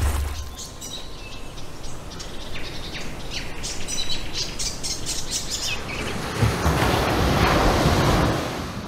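Birds chirping and calling in many short, high notes over a background hush, with the tail of a deep boom fading out at the start. From about six seconds in, a rushing noise swells and then drops away near the end.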